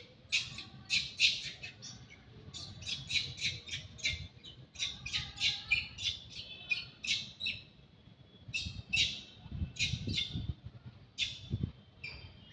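Small birds chirping: quick runs of short, high chirps and squawks, several a second, coming in bouts.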